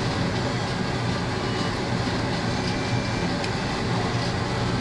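Steady low machine hum with an even rushing noise, unchanging throughout, and one faint click about three and a half seconds in.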